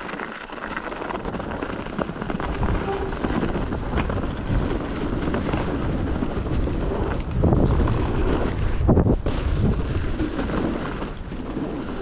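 Mountain bike tyres rolling fast over a loose dirt trail, with wind rushing over the camera microphone. The noise grows louder about seven and a half seconds in and drops away briefly just after nine seconds.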